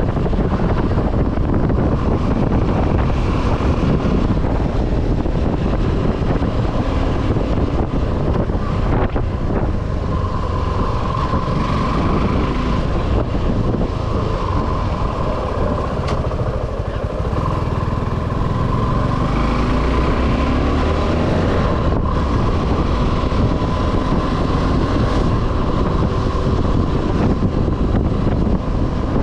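Suzuki V-Strom 250 SX's single-cylinder engine running steadily while the motorcycle is ridden, mixed with wind rushing over the camera microphone.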